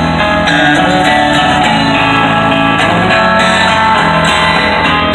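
Country music with guitar playing loudly on a car radio.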